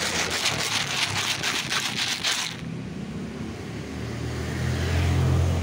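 Dry cat kibble rattling in a hand-held plastic container for about two and a half seconds, then stopping. A passing motor vehicle's low hum swells near the end.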